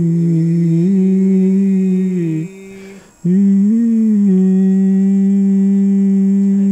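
A man's voice holding a steady sung vowel tone, just under 200 Hz, for a pitch-range test during a vocal cord exam with a scope through the nose. The tone steps up slightly about a second in and cuts off about two and a half seconds in. After a breath he starts a second held note, with a small rise at its start, then holds it steady.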